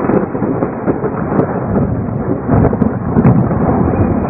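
Thunderstorm: loud, continuous rumbling thunder with rain.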